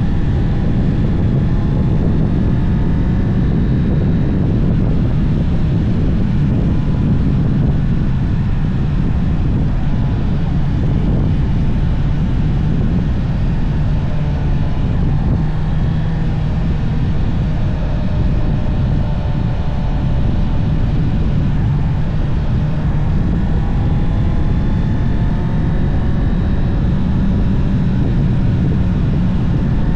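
Honda CB650R's inline-four engine running through its stock exhaust while riding, its pitch drifting gently up and down, under heavy wind rumble on the microphone.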